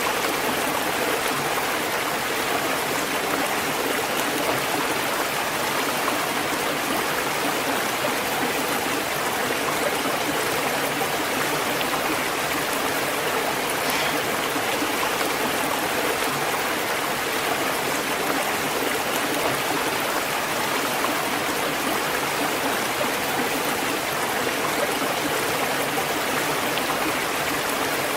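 Waterfall and flowing stream water, a steady even rush with a splashing, babbling texture.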